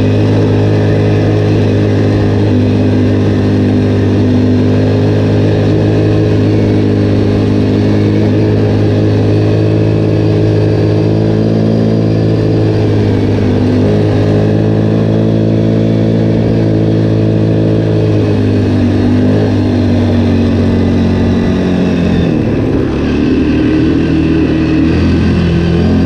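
Linhai 300 ATV's single-cylinder engine running at a steady riding speed, its note shifting slightly a few times and changing more clearly near the end.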